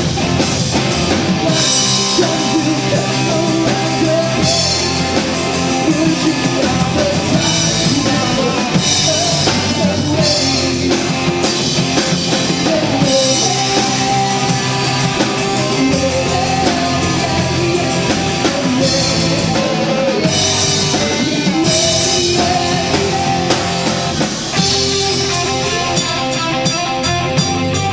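Christian rock band playing live, with drum kit and cymbals, electric guitar and bass.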